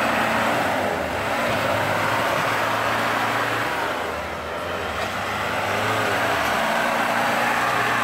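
Land Rover Discovery's 300Tdi four-cylinder turbodiesel engine working under load as it pushes through deep snow, a steady engine note with a short dip in loudness about four and a half seconds in.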